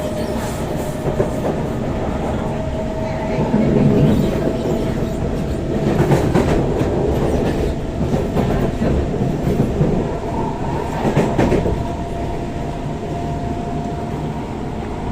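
SMRT C151 metro train heard from inside the car while running: steady wheel and track rumble with a thin whine that slowly rises in pitch, and wheels knocking over rail joints several times.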